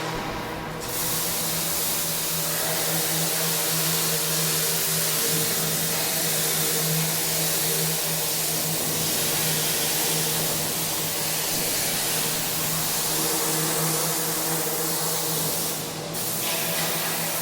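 Engine-driven pressure washer running with a steady low hum under a loud high-pressure water spray hiss; the spray eases off briefly just at the start and again near the end.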